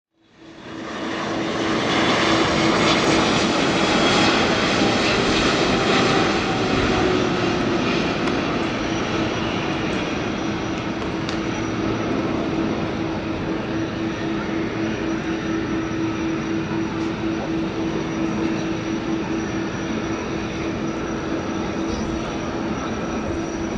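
GE90 jet engines of a Boeing 777-200LR landing and rolling out: a steady jet engine drone with a constant hum and a high whine. It fades in over the first second, is loudest in the first few seconds, then settles a little lower.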